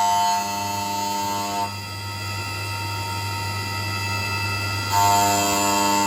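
CNC mill spindle running at 6000 RPM with a steady hum, under a whine of several steady tones from the machine. The whine drops out about two seconds in and comes back about five seconds in, as the table is jogged slowly across.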